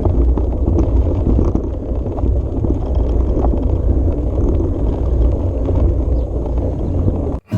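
Riding a Riverside 500 hybrid bicycle over rough off-road ground: a loud, steady rumble of tyres on the terrain and wind buffeting the microphone. It cuts off suddenly near the end.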